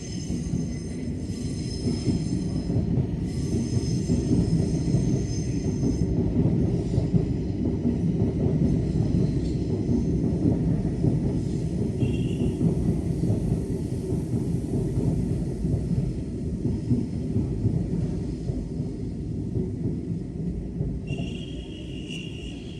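Train passing: a heavy low rumble that builds a couple of seconds in and eases off near the end, with a high wheel squeal over the first few seconds. A short high tone sounds about twelve seconds in and again near the end.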